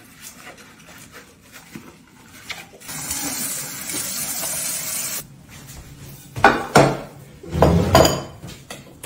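Bathroom tap running into a sink for about two seconds, a steady splashing hiss. Near the end come a few loud clinks and knocks.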